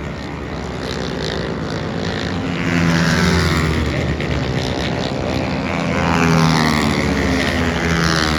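Racing engines running at high revs as machines pass by, the pitch sweeping up and then dropping as each one goes past, twice in a row.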